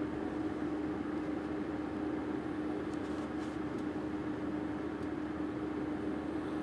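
Steady appliance hum with one constant mid-pitched tone over a soft whir, unchanging throughout.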